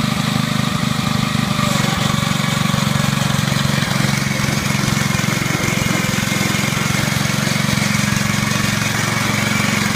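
Small engine of a Mametora tracked mini dump carrier running steadily at an even speed.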